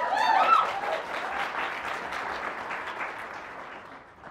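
Audience applauding, with a few whoops and cheers in the first second or so, dying away near the end.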